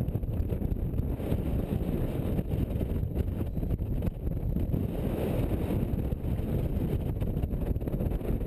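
Wind buffeting the microphone: a dense, low rumble that rises and falls unevenly.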